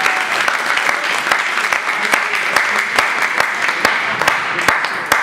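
Spectators clapping and applauding a won point in a table tennis match, a steady patter of many hands that fades away at the very end.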